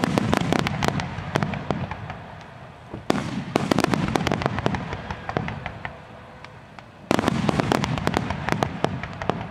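Fireworks display: three volleys of aerial shells bursting in rapid succession, coming at the start, about three seconds in and about seven seconds in. Each volley opens suddenly with a dense run of sharp bangs and crackles, then fades over a few seconds.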